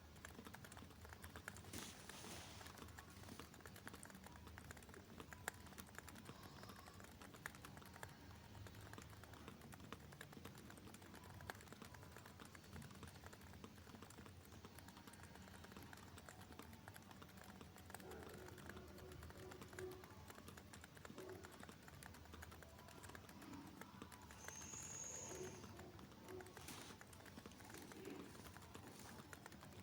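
Typing test on a Realforce R3 tenkeyless keyboard with Topre electrostatic capacitive switches: a faint, continuous run of soft keystrokes.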